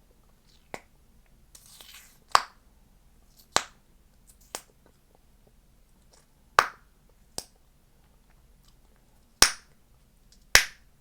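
Chewing gum being popped and snapped in the mouth: a series of sharp, loud pops, about eight at uneven intervals, the loudest near the end.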